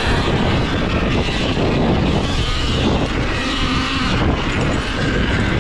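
Sur-Ron Ultra Bee electric dirt bike being ridden along a dirt track: a steady, loud rush of riding noise without a distinct engine note.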